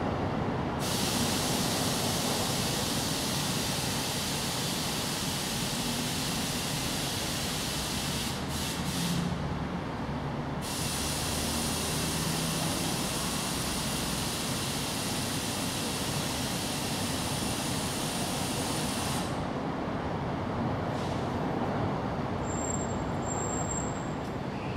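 Steady outdoor background noise: a constant low rumble under a loud, even high hiss. The hiss switches on about a second in, drops out for a couple of seconds around the eight-second mark, returns, and cuts off abruptly near twenty seconds.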